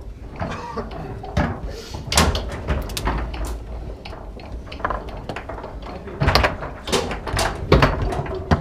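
Foosball play: irregular sharp knocks and clacks as the ball is struck by the plastic players and hits the table, and the rods slide and bang.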